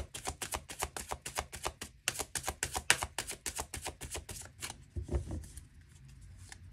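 A tarot deck being shuffled by hand: a quick, even run of card clicks, about eight a second. The clicks stop about five seconds in with a low thump.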